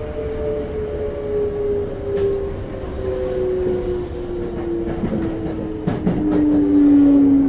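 Mitsubishi GTO-VVVF inverter and traction motors of a Toei 5300 series train, heard from inside the car, whining in a steadily falling pitch as the train slows under braking. A few knocks come from the wheels passing over rail joints.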